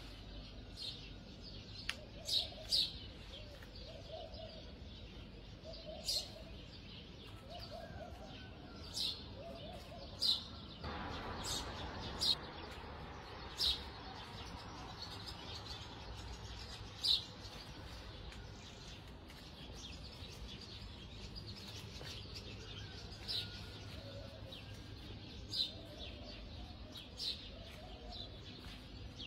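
Small birds chirping: short, high chirps every second or two, with a lower repeated call in the first ten seconds. About eleven seconds in, a rush of noise starts suddenly and fades away over several seconds.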